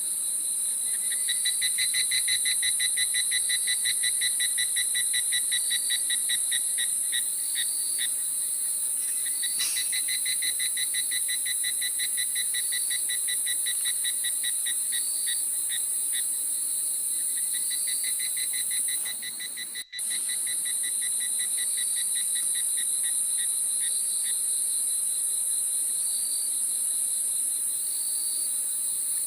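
Chorus of insects such as crickets: a steady high-pitched buzz, a fast pulsing trill that comes and goes in long bouts, and short chirps repeating about once a second. The sound cuts out for a moment about two-thirds of the way through.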